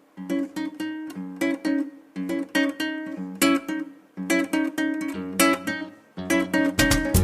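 Background music: acoustic guitar picking a repeating pattern of plucked notes, with more instruments joining in near the end.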